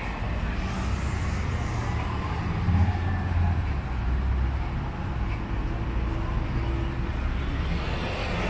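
Steady road traffic noise, with the engines of vehicles on the street running and humming low.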